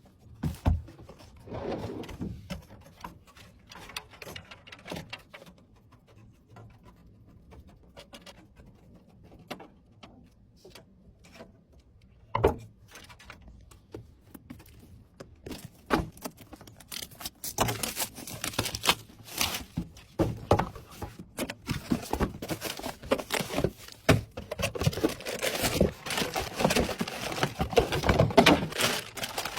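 Hands handling computer parts during a PC build: scattered clicks, knocks and light rattles. They are sparse at first and grow busier and louder in the second half.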